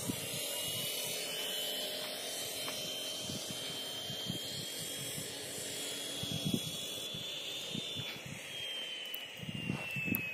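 Steady outdoor background noise with a faint high whine that rises slowly, then glides down near the end, and a few low thumps.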